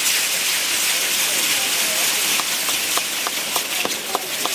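Fireworks hissing steadily, with short sharp crackling pips coming irregularly, about three a second, from about halfway through.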